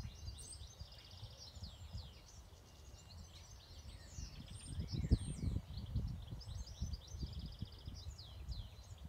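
Songbirds singing continuously, with quick chirps, sweeping notes and rapid trills, over wind buffeting the microphone in uneven gusts, strongest around the middle.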